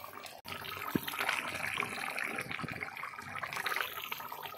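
A thick mustard and poppy-seed fish gravy bubbling at the boil in a kadai, a steady wet bubbling hiss that briefly drops out about half a second in, with a single click about a second in.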